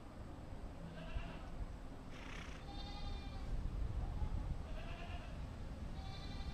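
Sheep bleating several times, about four short calls over a few seconds, with a brief hiss just after two seconds in.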